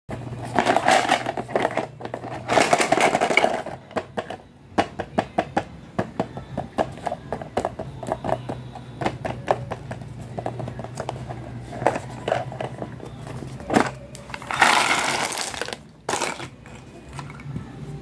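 Fingers tapping and rubbing on a hollow plastic toy stove: two stretches of rubbing in the first four seconds, then a run of quick taps, and another stretch of rubbing about fifteen seconds in.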